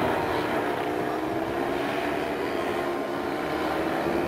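Engines of several radio-controlled model airplanes flying together in formation overhead: a steady drone of several pitches at once that drift slowly against each other.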